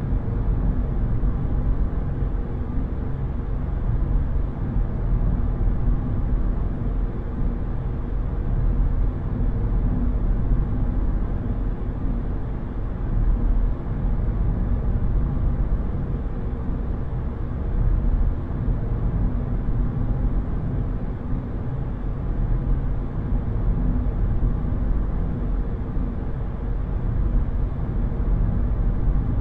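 Steady low rumble of a car driving, road and engine noise heard from inside the cabin, even and unchanging.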